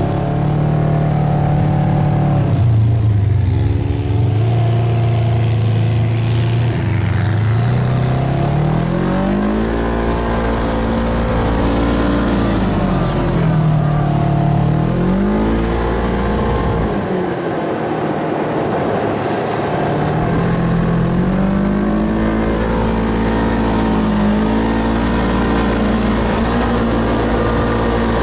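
Side-by-side dune buggy's engine running under load, its pitch climbing and falling several times as the throttle is worked over the dunes. The revs drop away for a few seconds a little past halfway, then climb again.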